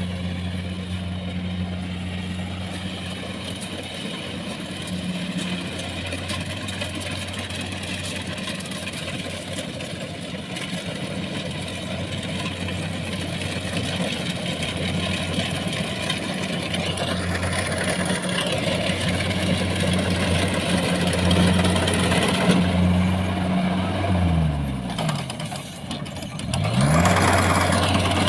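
Rice combine harvester's engine running steadily. Near the end its pitch falls sharply as it slows right down, then it revs back up about two seconds later.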